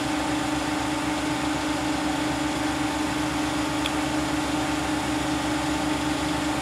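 Steady mechanical hum from print-shop machinery: one low droning tone over an even hiss, unchanging throughout.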